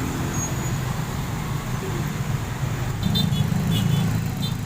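Bus engine running amid road traffic, a steady low rumble that grows louder about three seconds in.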